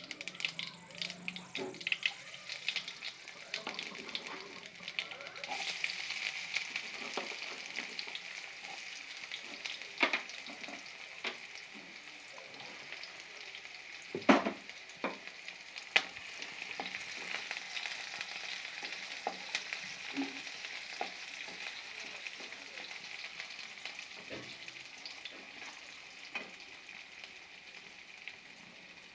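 Tempering seeds crackling and popping in hot oil in a non-stick pan. About halfway there is a single loud knock as onions and green chillies go in, and after it the pan sizzles steadily as they fry and are stirred with a wooden spatula.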